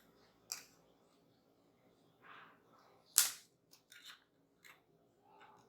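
Handling noise of small plastic and electronic parts: a few short, sharp clicks and taps, the loudest a single crisp click about three seconds in, followed by a quick run of smaller ticks.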